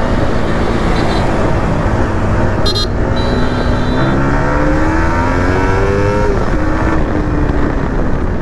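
Yamaha R15 V3's single-cylinder engine accelerating under the rider, over wind rush. The pitch climbs for a few seconds, then drops at an upshift about two-thirds of the way through and holds steady.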